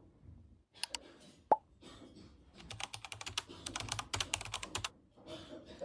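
Small hard objects being handled: two light clicks, one sharp plop about a second and a half in, then a quick run of light clicks and taps.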